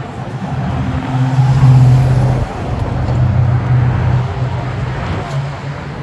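A motor vehicle engine running close by on a busy street, a steady low hum that is loudest about two seconds in, over general traffic noise.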